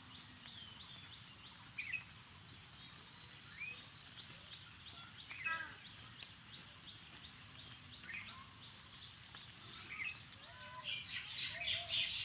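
Birds chirping: a steady run of short, high repeated notes, with separate curving calls every couple of seconds and a busier burst of chirping near the end.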